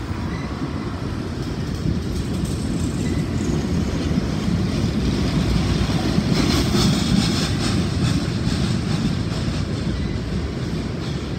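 Freight train of covered hopper cars and tank cars rolling past: a steady low rumble of steel wheels on the rails, swelling about halfway through with a stretch of clicking and clatter.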